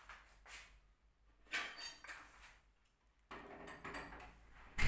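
Scattered clattering and rustling handling noises, with a sharp knock near the end.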